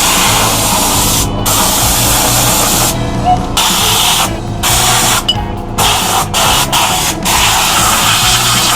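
Background music with a steady low beat, under a loud hissing noise that breaks off briefly several times.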